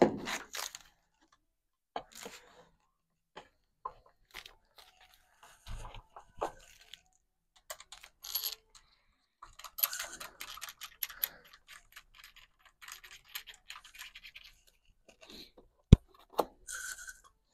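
Hands working on a road bike and its packaging while it is unboxed and the handlebars are fitted: scattered clicks, light knocks and rustling of packing material, with a sharp knock at the start and another near the end.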